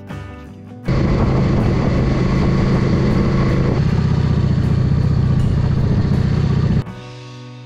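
Yamaha XVS 650 DragStar's V-twin engine running under way, with wind rush over the microphone. It cuts in about a second in and stops sharply near the end.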